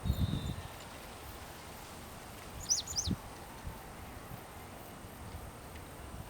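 Wagtail giving two short, high, downward-slurred call notes in quick succession about three seconds in. Low rumbling thumps come at the start and just after the calls.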